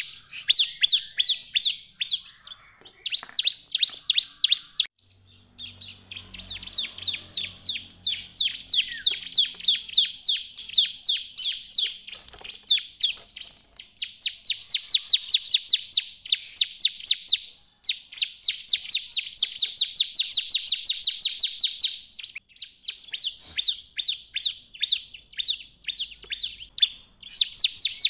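Bar-winged prinia (ciblek) in full song: long runs of fast, high, repeated chirping notes, broken by a few short pauses.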